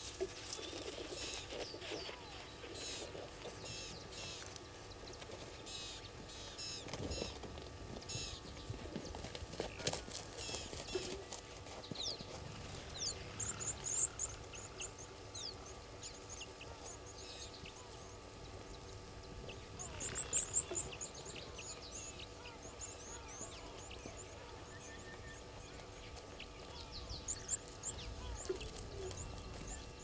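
Wild birds calling in the bush: a run of repeated chirping notes, then bursts of high, fast twittering about thirteen seconds in, again around twenty seconds and near the end, over a steady outdoor background with a couple of soft low thumps.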